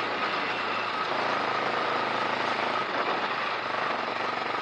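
Motorcycle running steadily under way, its engine drone mixed with wind and road rumble on the bike-mounted action camera's microphone.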